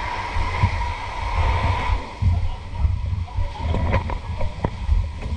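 Wind buffeting the microphone in uneven gusts, under a steady high whine that is strongest for the first two seconds, with a few short knocks near the end.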